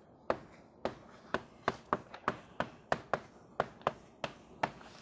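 Chalk tapping and clicking against a blackboard as a formula is written: a quick, uneven run of sharp taps, several a second.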